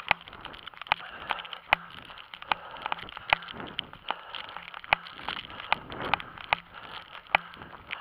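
A runner's footsteps on an asphalt road, an even beat of about two and a half steps a second, over a steady hiss.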